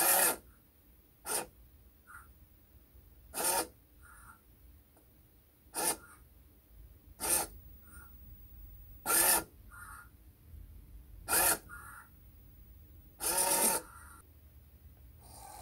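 Large hobby servo driving a model rubbish truck's paddle packer, whining in short geared bursts as the paddle is stepped round under manual control. It moves about eight times, each move lasting under a second, with fainter little blips between them.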